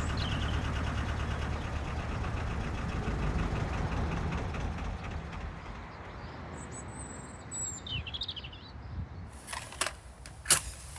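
A low steady rumble fades out over the first few seconds, and birds chirp briefly around the middle. Near the end a matchbox rattles and a match is struck: several sharp scrapes and clicks, the loudest about ten seconds in.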